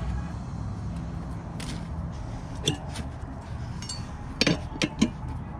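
Steel tire irons clinking and knocking against a spoked dirt-bike wheel rim as the tire bead is pried off. A sharp clink about halfway through and several more in quick succession near the end, over a low steady rumble.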